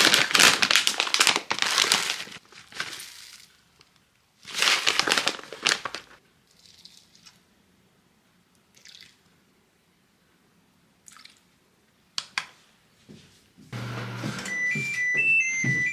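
Dry oatmeal being poured out to weigh: two bursts of crisp rustling and pattering, then a few light clicks of kitchenware. Soft keyboard music comes in near the end.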